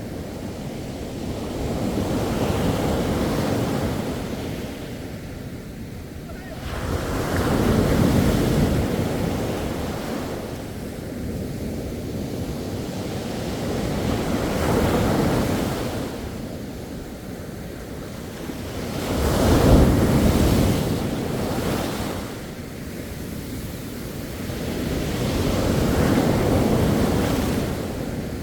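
Sea waves breaking on a beach, the surf swelling and receding in a slow rhythm, a surge about every five to seven seconds, with the biggest one about twenty seconds in.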